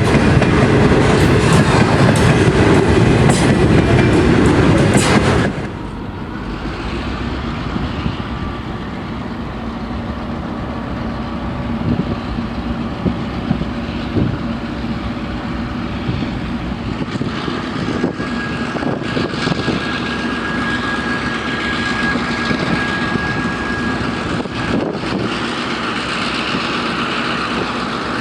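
A train passing at close range, loud, which cuts off suddenly about five seconds in. A quieter steady rumble with a faint held hum follows.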